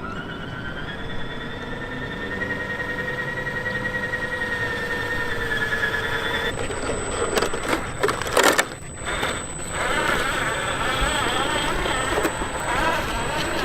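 A radio-controlled truck driving: a steady electric-motor whine, then an abrupt change about six and a half seconds in to louder, rough scraping and rattling, with a few jolts a little later.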